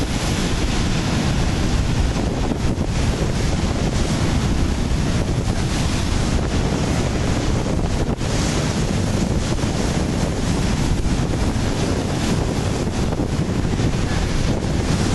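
Ocean surf breaking and washing over a rocky shoreline, with steady wind buffeting the microphone.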